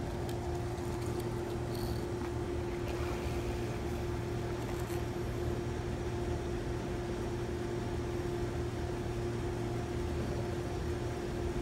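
A steady mechanical hum with one constant tone, like a running fan or air-conditioning unit.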